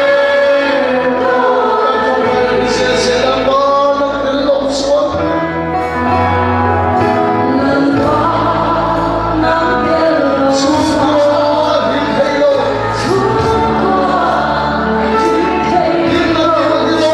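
Congregation singing a gospel hymn together in chorus, with instrumental accompaniment and steady bass notes underneath.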